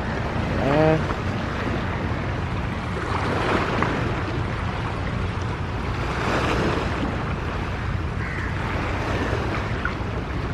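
Wind rumbling on the microphone over surf at the shore, with the wash swelling twice. A short pitched sound cuts in about a second in.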